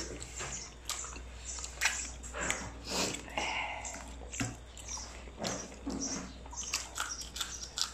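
Close-up eating sounds: wet chewing and lip-smacking with irregular short crunches and clicks as food is bitten and chewed.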